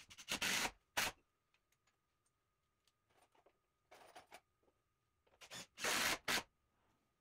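Cordless impact driver driving screws into a softwood stud block, in two short runs, one near the start and one near the end, with lighter handling knocks between.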